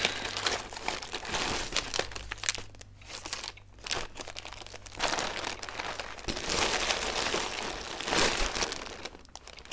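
Plastic packaging crinkling and rustling as it is handled and rummaged through, in uneven bursts with a short lull a few seconds in.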